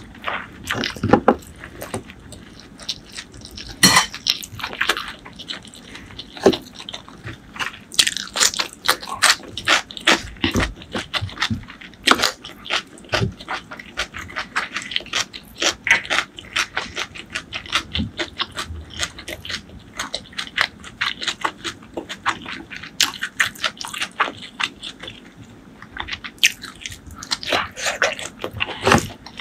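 Close-miked eating by hand: crunchy fried food being chewed, then cooked rice tipped from a bowl onto a wooden board and mixed with curry by hand, a dense run of crunches, clicks and wet smacks.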